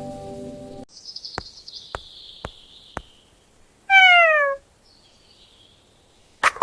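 A single loud cat meow about four seconds in, falling in pitch. Before it, brief music cuts off, then four light ticks about half a second apart sound over a soft falling whoosh, and a sharp click comes near the end.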